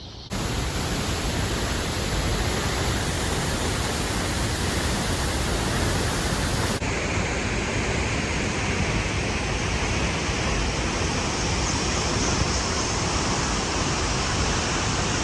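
Steady rushing noise of a large waterfall pouring into its pool, starting suddenly a moment in and shifting slightly in tone about seven seconds in.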